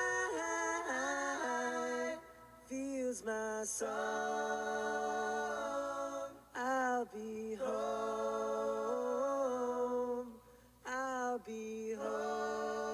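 Music track of a singing voice, close to a cappella, holding long notes with short slides between them and breaking off briefly three times.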